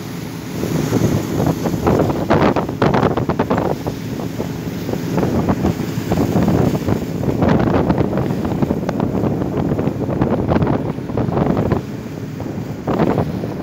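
Sea water rushing and splashing along the hull of a moving work boat, with wind buffeting the microphone. The noise rises and falls in surges every second or two.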